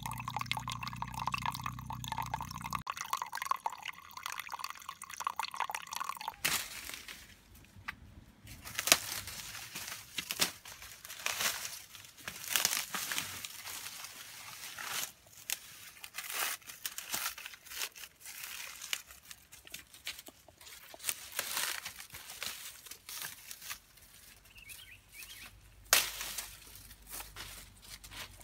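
Water trickling and dripping off a mossy rock for the first six seconds or so, then dry corn stalks and leaves crackling and rustling irregularly as someone pushes through them on foot.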